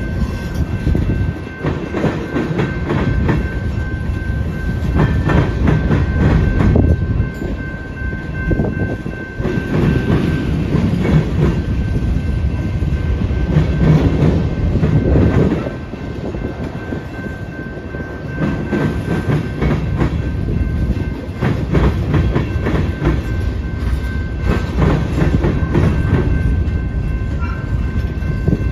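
Union Pacific freight train rolling past, its cars rumbling with a steady clatter of wheels over the rails, the loudness swelling and easing every few seconds.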